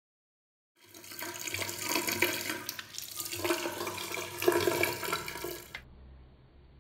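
Water running from a tap into a sink and splashing over a hand as the tap handle is washed with soap. It starts about a second in and cuts off suddenly near the end.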